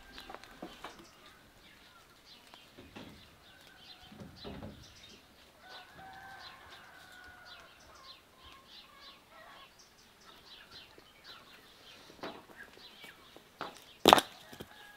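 A hen clucking, with a drawn-out call about six seconds in, over small birds chirping. Near the end, one sharp blow of an axe into a log.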